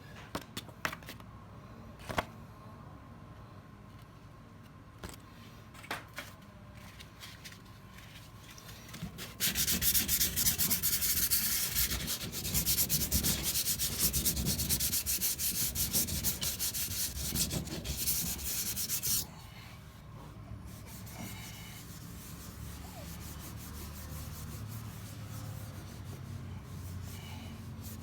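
Rapid scratching and scraping on a water tank's surface around a crack, roughening it so a patching compound will stick. A few light taps come first, then a loud run of fast strokes from about nine seconds in that stops suddenly about ten seconds later, then fainter rubbing.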